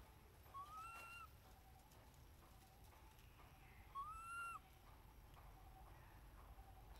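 Baby macaque giving two short coo calls about three seconds apart, each rising and then falling in pitch.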